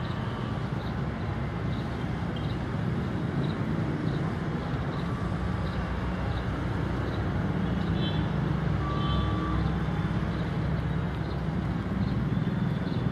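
Steady low engine rumble with traffic noise, growing louder near the end. A short high ding repeats a little faster than once a second throughout.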